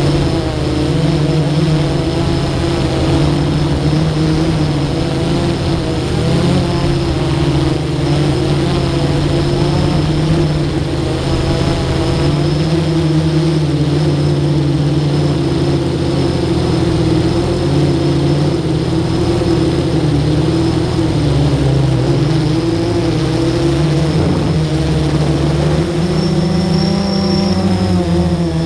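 Electric motors and propellers of a small camera drone in flight, heard close from its onboard camera: a loud, steady hum of several stacked tones that waver in pitch as the motors speed up and slow down, shifting near the end as it turns.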